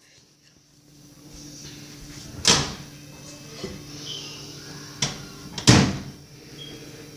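A few sharp knocks, like a door or cupboard shutting, about two and a half seconds in and again twice near the end, the last one loudest. Under them runs a steady low hum.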